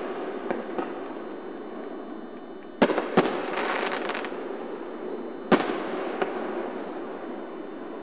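Aerial fireworks going off: two loud bangs close together about three seconds in, followed by crackling, then another loud bang about halfway through, each fading out in an echo. A few fainter pops come between them.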